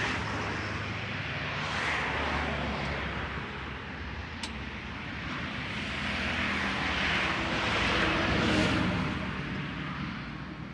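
Vehicles passing on a road: a rushing noise that swells and fades several times over a low engine hum, with one sharp click about four seconds in.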